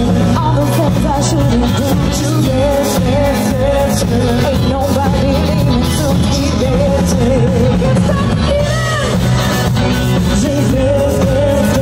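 Live rock band playing, with a woman singing lead over electric guitars, keyboard and a steady beat.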